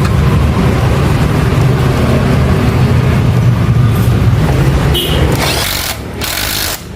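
A motor running steadily with a low hum. A loud hiss joins it about five seconds in and cuts off suddenly after about a second and a half.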